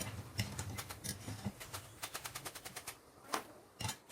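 Potato fries deep-frying in hot sunflower oil in a kadai: a quick, irregular crackling and popping, with two louder clicks near the end.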